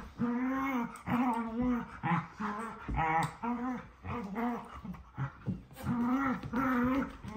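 Husky vocalising in rough play with a person: a quick run of about a dozen short growling, howl-like grumbles, each rising and falling in pitch.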